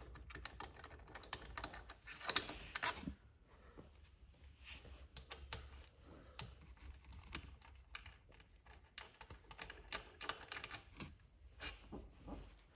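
Hand ratchet clicking in short, irregular runs as the bolts of a scooter's left crankcase cover are backed out, with light metal taps from the bolts and tool. The clicks are faint, with a louder flurry about two seconds in.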